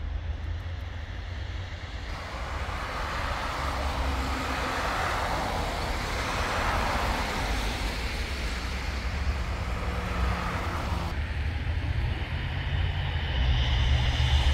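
City street traffic: vehicles passing with a steady low rumble and broad tyre-and-engine noise that swells and fades as each one goes by, building again near the end.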